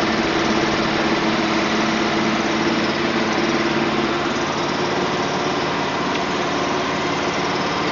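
Small engine running steadily at a constant speed, a continuous drone with no change in pitch.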